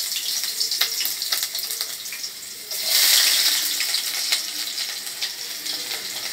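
Chopped onion sizzling and crackling in hot oil in a pot. A fresh loud surge of sizzle about three seconds in, as more onion is tipped in, then slowly settles.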